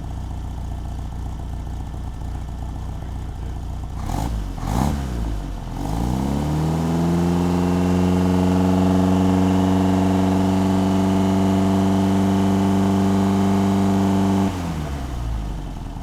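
1964 Triumph TR4's four-cylinder engine running with its timing freshly set to 4 degrees before top dead centre: idling, blipped twice about four seconds in, then revved up smoothly and held at a steady higher speed for about eight seconds before dropping sharply back to idle near the end.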